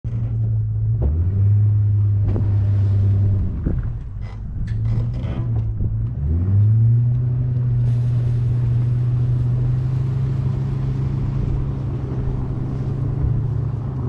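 A vehicle engine running, its pitch dipping and climbing back about a second in and again about six seconds in, with a few short clicks in between.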